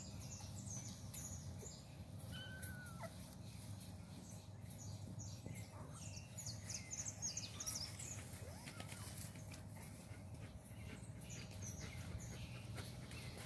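Kittens wrestling on long grass: faint rustling and scuffling, busiest about halfway through. A short high call comes about two and a half seconds in.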